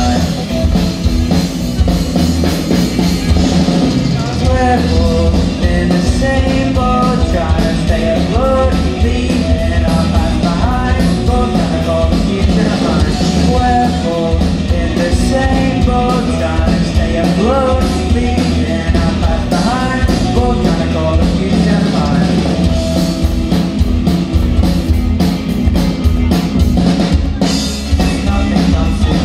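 Rock band playing live: electric guitars, bass and drum kit at full volume, with a lead singer's voice over the band.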